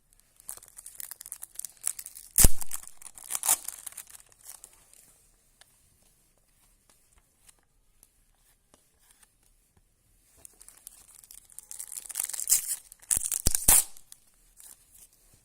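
Foil trading-card packets being torn open and crinkled, in two bouts with a quiet gap of about five seconds between them, each bout with a few sharp crackles.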